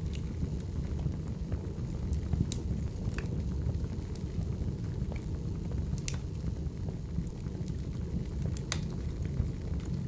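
Wood fire burning in a fireplace: a steady low rumble of flames with scattered sharp crackles and pops, the loudest a few seconds in, around the middle and near the end.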